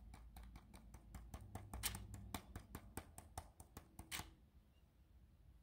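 Faint, quick, irregular clicking of fingertips tapping the hard plastic head of a WowWee CHiP robot dog, about five taps a second, stopping about four seconds in.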